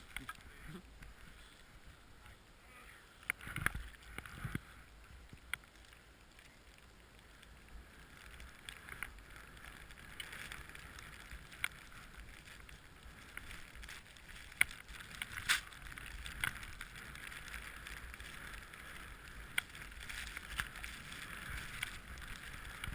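Skis ploughing through more than 50 cm of fresh powder snow: a soft, steady hiss that grows louder about a third of the way in, broken by a few sharp knocks, the strongest about four seconds in and about fifteen seconds in.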